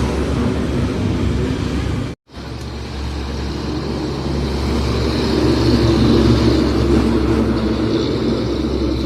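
Tata truck's diesel engine running steadily with road noise. The sound cuts out for a moment about two seconds in, then comes back, a little louder in the middle and easing near the end.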